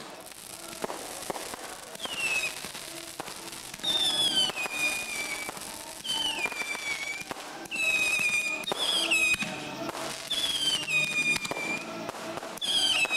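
Fireworks display with a string of whistling fireworks: about seven high whistles, each sliding down in pitch and then holding briefly, every one and a half to two seconds, among crackling pops.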